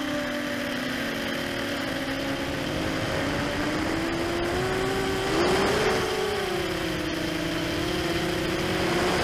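Brushless motors and propellers of an ImmersionRC Vortex 250 Pro FPV racing quadcopter, heard on board: a whine whose pitch drifts with throttle. It rises and gets louder in a short burst about five and a half seconds in, and swells again near the end.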